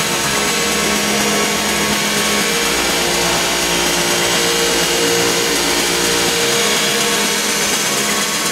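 Electronic dance music playing through a DJ mixer: a loud, steady hiss-like noise wash over several held synth tones, with no clear drum beat, as in a breakdown or build-up.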